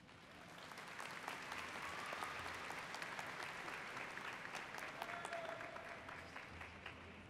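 Audience applause, swelling over the first couple of seconds and then slowly dying away.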